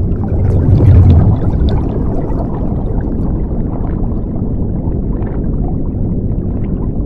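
Underwater bubbling sound effect: a steady muffled rumble of water with small bubble pops, swelling briefly about a second in.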